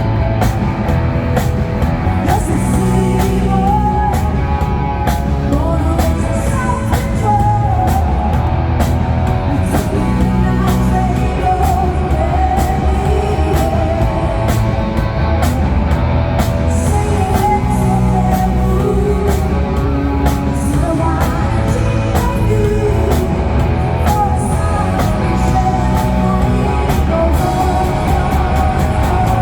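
Rock music with a singer over electric guitar and drums, playing steadily at full level.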